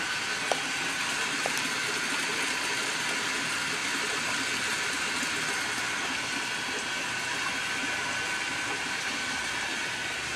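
Steady tropical forest ambience: an even hiss with a faint high steady tone running through it, and two light ticks in the first second and a half.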